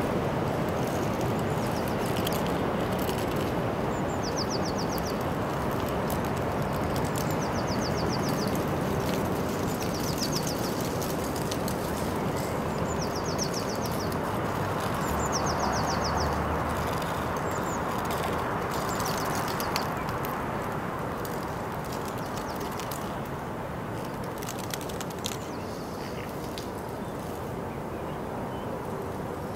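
A small bird singing a short, rapid trilled phrase about every three seconds, five or six times in the first half, over a steady rushing background noise that eases slightly toward the end.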